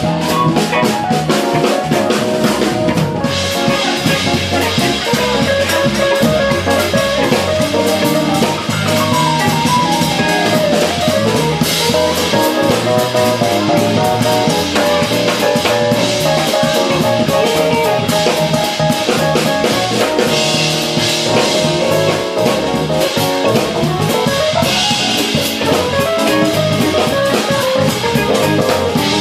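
Live jazz-fusion band playing an instrumental: electric guitar carrying a melodic line over electric bass and drum kit, with a few cymbal crashes.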